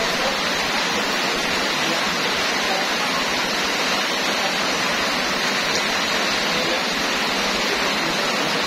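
Heavy tropical rain pouring down steadily, a dense, even hiss of rain on the wet street and roofs.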